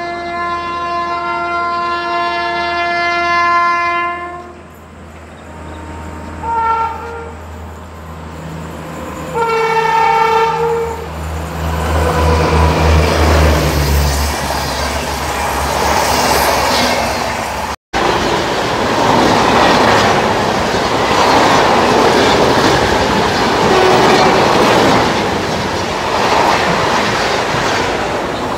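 Indian Railways locomotive horn: one long multi-tone blast, a short toot about six seconds in and another blast around ten seconds. Then the low rumble and clatter of a train passing through the station, which goes on as steady train running noise after a cut.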